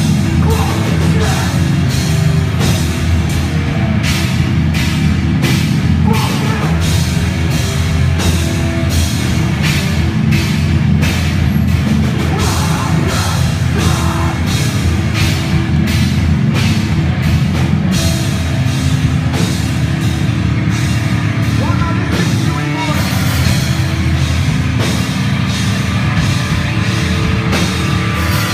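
Hardcore band playing live: distorted electric guitars, bass and drum kit at full volume, with vocals over the top.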